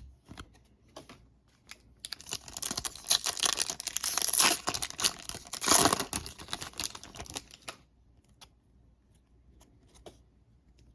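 A foil trading-card pack wrapper being torn open and crinkled, a dense crackling stretch of about six seconds, with light clicks and taps of cards being handled before and after it.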